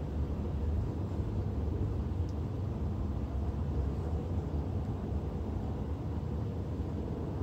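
Ford F-450 Super Duty pickup's engine running with a steady low rumble as the truck rolls slowly across the lot.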